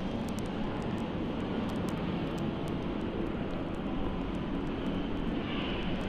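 KDK three-blade ceiling fans running at speed: a steady rushing noise of moving air.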